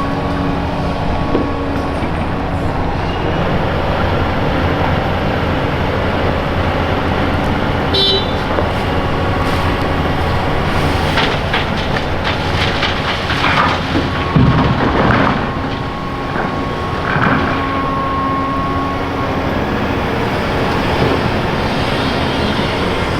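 A Volvo EC480EHR excavator's diesel engine runs steadily alongside dump trucks. There is a short beep about eight seconds in. From about eleven to seventeen seconds comes a stretch of clattering, as crushed concrete rubble is loaded into a truck.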